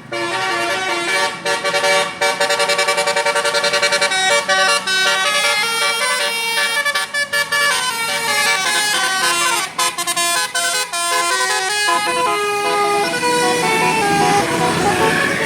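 Telolet Basuri multi-tone musical air horn on a tour bus playing a tune, its notes stepping up and down, with a fast run of rapidly repeated notes about two seconds in.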